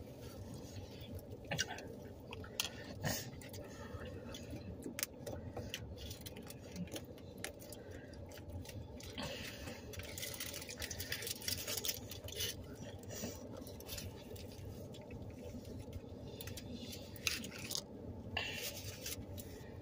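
Aluminium foil burrito wrappers crinkling as they are handled, with scattered small clicks of a fork, over a low steady hum.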